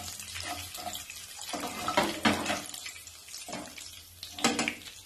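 Whole spices (bay leaves, dried red chillies, fenugreek and cumin seeds) sizzling in hot oil in a non-stick kadai as the tempering (phoron) fries, stirred with a wooden spatula that scrapes the pan a few times.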